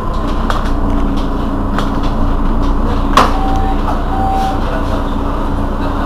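Mercedes-Benz Citaro Facelift city bus standing with its engine idling in a steady low rumble. A sharp knock comes about three seconds in, followed by two short high beeps.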